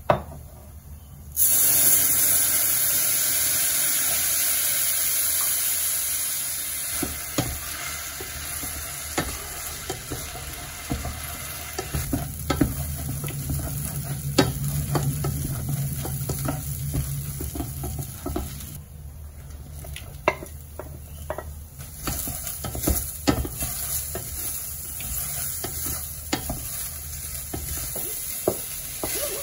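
Chardonnay poured into a hot stainless steel saucepan of risotto rice sets off a loud sizzle a little over a second in, which slowly settles as the wine cooks off. The rice then keeps frying while a wooden spatula stirs it, with many light scrapes and taps against the pan.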